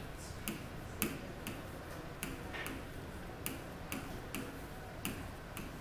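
Stylus tapping and clicking against an interactive touchscreen board while writing, a string of short sharp ticks about two a second at uneven intervals.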